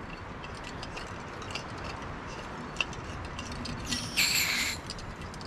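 Snow Peak canister stove's folding metal pot-support arms being swung open by hand: light clicks, then a short, high metallic squeak about four seconds in.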